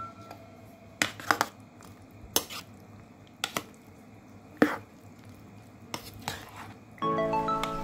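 Metal spoon stirring bread pieces in a milky mixture in a bowl, clinking against the bowl now and then: about eight sharp, irregular clinks with soft wet squishing between them.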